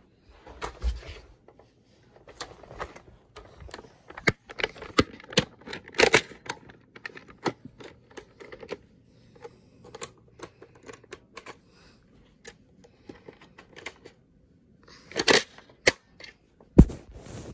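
Irregular plastic clicking and rattling of Nerf foam-dart blasters being handled, with a few louder knocks near the end.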